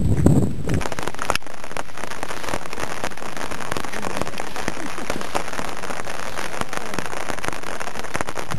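Steady rain pattering on an umbrella canopy overhead, a dense hiss of many small drop ticks. A brief low rumble fills the first second.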